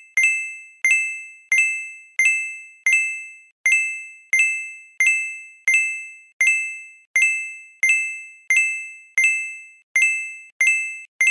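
A bright electronic ding repeating at an even pace, about once every 0.7 seconds. Each strike is the same two-tone chime at a steady pitch, starting sharply and dying away before the next.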